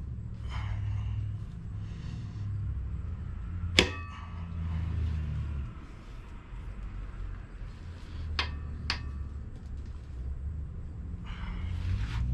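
Metal tools and engine parts knocking together during an engine teardown: one sharp, ringing clang about four seconds in and two lighter clinks about eight and nine seconds in, over a steady low rumble.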